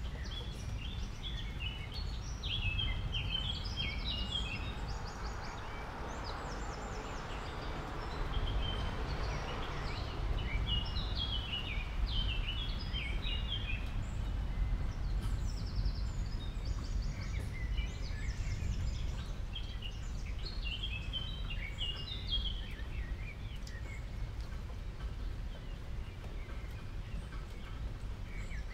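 Guinea pigs chewing crisp water spinach stems: scattered runs of small, fast crunching clicks, over a steady low background rumble.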